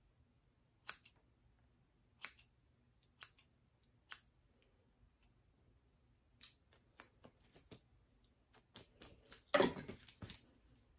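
Scissors snipping through the hair of a human-hair wig as it is trimmed: single snips about a second apart, then a quicker run of snips in the second half, the loudest near the end.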